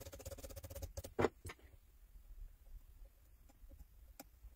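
A small brush scrubbing fast along the edge of a phone screen clamped on a repair machine's stage, a quick run of scratchy clicks over a faint steady hum for about a second. Then two sharp knocks in quick succession, and a single light tap near the end.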